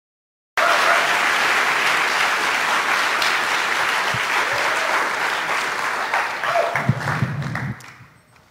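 Audience applauding, cutting in abruptly about half a second in and dying away near the end, with a few low bumps just before it fades.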